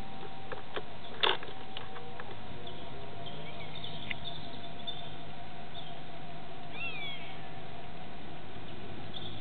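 Steady low mechanical hum, with a sharp knock about a second in and a few short, high, falling calls near the middle and near the end.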